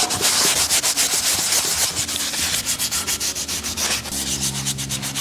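Scotch-Brite abrasive pads scrubbed quickly back and forth over a bare metal engine casting, a fast run of scratchy strokes from several hands at once, scuffing off loose dirt and flaking rust to prepare the metal for paint.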